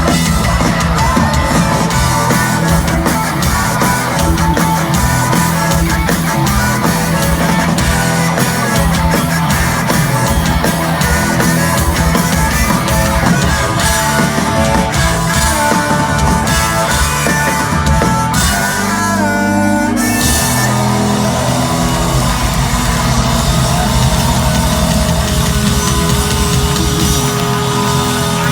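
Live rock band playing loud, with distorted electric guitars and a pounding drum kit; the sound breaks briefly about two-thirds of the way through, then the full band carries on.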